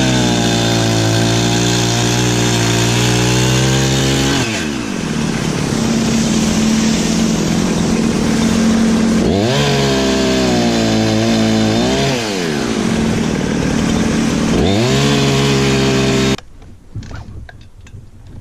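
Perla Barb 84cc two-stroke chainsaw running at high revs while cutting firewood, its pitch dropping and rising again several times under load. The engine sound cuts off suddenly near the end, leaving only faint clicks.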